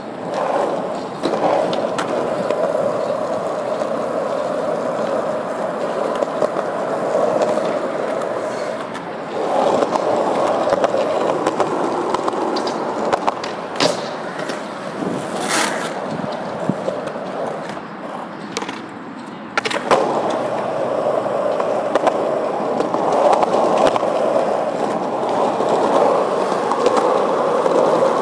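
Skateboard wheels rolling over concrete: a steady rumble broken now and then by sharp clacks. It drops quieter for a couple of seconds about two-thirds of the way through, then picks up again with a louder clack.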